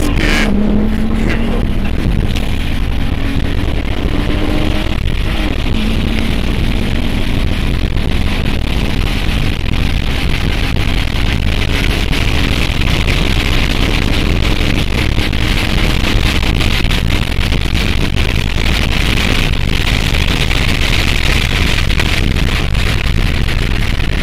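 Car engine accelerating hard, heard from inside the cabin: its pitch climbs, drops at a gear change about five seconds in, and climbs again. Steady loud road noise at speed follows.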